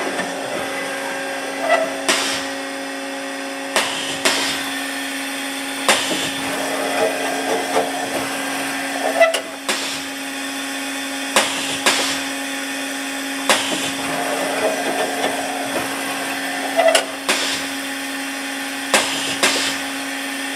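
Haas SL-10 CNC lathe running: a steady mechanical hum with sharp clanks every second or two.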